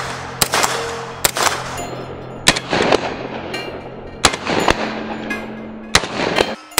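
Sig Sauer MPX 9 mm carbine firing about seven single shots at an uneven pace, each with a short ringing echo.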